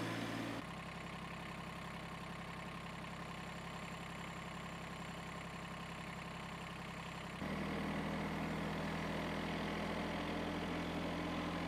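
Compact tractor engine running steadily at idle, a low even hum. About seven seconds in the sound steps abruptly louder.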